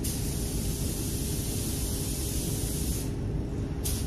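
Tuba TH101AG spray gun hissing as it sprays basecoat: one long trigger pull of about three seconds, a short pause, then a brief burst near the end. A steady low rumble runs underneath.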